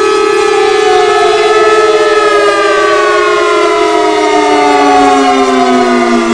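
Chrysler Victory Bell civil defense siren, driven by its V8 petrol engine, sounding a loud, steady wail that begins to slide slowly down in pitch about a second or two in.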